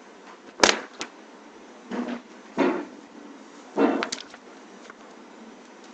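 A handful of short knocks and scuffs from things being handled, about five in all, the first and loudest about half a second in and a cluster near the end.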